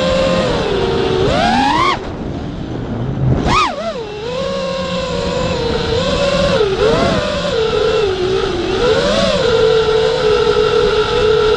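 A radio-controlled car's motor running at high revs, its pitched whine rising and falling with the throttle. It climbs and cuts back near the start, revs in one quick burst about three and a half seconds in, wavers, then holds steady.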